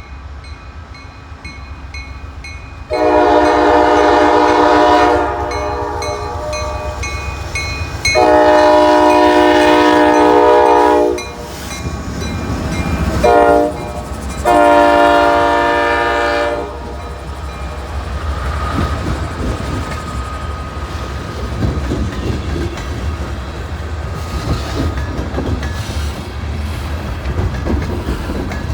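Freight locomotive's air horn sounding the grade-crossing signal: two long blasts, a short one and a final long one, starting about three seconds in. Then comes the steady rumble and wheel clatter of the long train rolling past on the near track.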